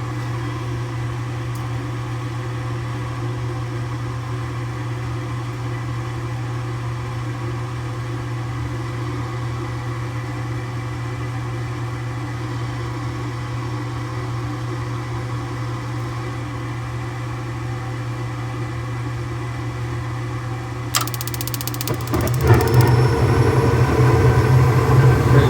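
A newly installed furnace inducer motor running with a steady hum. About 21 seconds in there is a click, and a second later the sound grows louder and fuller as the gas burners light.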